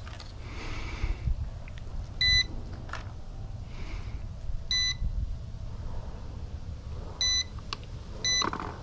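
Short electronic beeps from the RC helicopter's radio gear, each a single high tone about a quarter second long, repeating about every two and a half seconds and then two a second apart near the end. Wind rumbles low on the microphone underneath.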